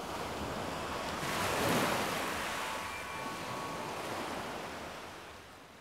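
Waves washing in: a rushing sound that swells to a peak about two seconds in, then slowly fades away.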